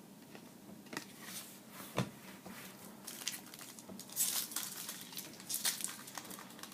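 A 2012 Bowman Chrome foil card-pack wrapper crinkling and tearing open, with small clicks from the cards being handled. The crinkling is loudest about four seconds in and again near the end.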